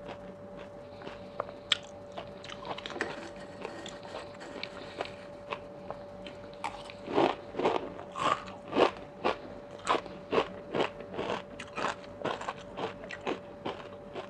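Close-up chewing and crunching of a spicy Thai oyster salad topped with crispy fried shallots. The crunches come thick and loud from about seven seconds in. A faint steady hum runs underneath.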